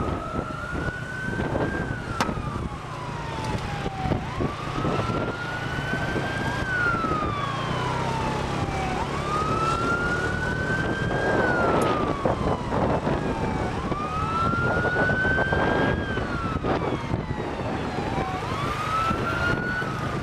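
A siren wailing in a slow repeating cycle: five rise-and-fall sweeps, each climbing quickly and then gliding down over about four seconds, over steady wind and road noise.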